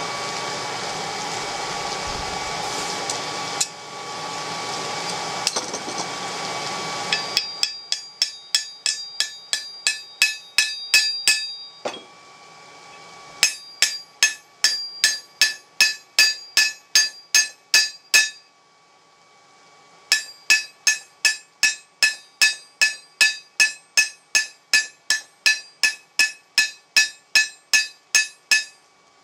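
A steady rushing noise for the first several seconds. Then a hammer strikes hot nail stock in a steel nail header on the anvil, heading the nail, in three runs of quick ringing blows, about three a second, with short pauses between.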